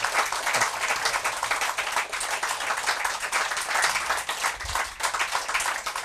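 A small studio audience applauding: many hands clapping in a dense, steady patter.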